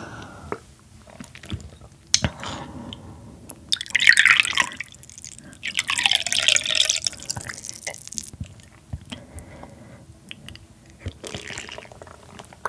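Wet liquid sounds close to the microphone: two longer watery stretches, about four seconds in and again from about six to eight seconds, with small clicks in between.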